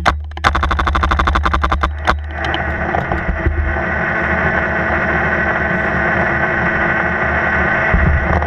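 Paintball marker firing in rapid strings, more than ten shots a second, with a short break just under half a second in, stopping about two seconds in. After that, a steady hiss.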